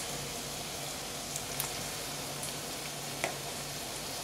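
A steady hiss with a faint low hum under it, and a few light clicks of a spoon against a stainless steel bowl as whipped cream is scooped out.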